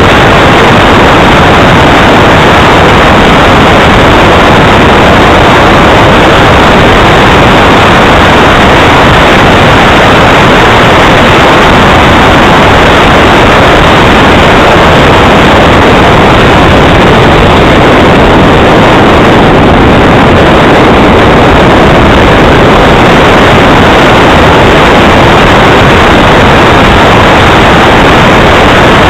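Radio-controlled model jet's engine running as a steady, heavily distorted rush that overloads the microphone.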